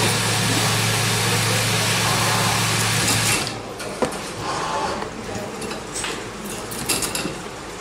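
A steady machine hum that cuts off suddenly about three seconds in. After it come a sharp click and a few lighter clicks and knocks from a hand-lever B22 punching press as it is loaded and worked.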